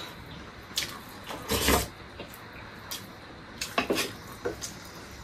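Eating sounds: a spoon scraping and tapping on a metal plate of rice, with chewing and lip smacks. A handful of short sounds are spread through, the loudest a little under two seconds in.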